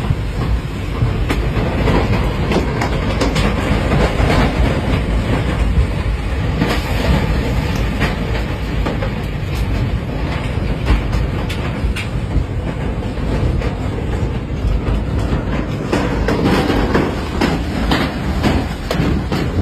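Tornado wind: a continuous loud roar with many sharp cracks and knocks mixed through it.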